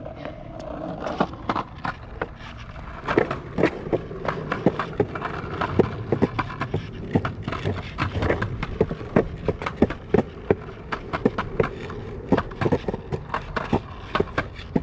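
Skateboard wheels rolling on a concrete sidewalk: a steady low rumble broken by many sharp clicks and clacks, several a second.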